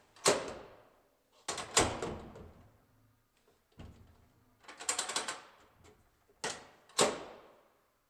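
Corbin Russwin ED5000S panic-bar exit device being worked by hand: the push bar and latch bolt clacking against the metal chassis and strike. It makes a series of sharp metallic clacks with short ringing tails, several in quick succession about five seconds in.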